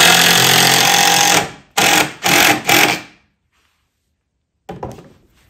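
A DeWalt 20V cordless drill and a DeWalt 20V impact driver running together, each driving a screw into wood: a loud motor whine mixed with the rapid rattle of the impact driver's hammering, for about a second and a half. Then three short bursts of running between about two and three seconds in.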